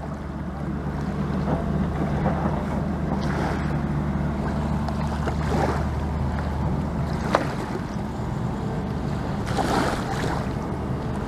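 Wind on the microphone and water lapping at the riverbank over a steady low drone. About nine and a half seconds in comes a brief splash: a hooked fish being dragged through the shallows to the shore.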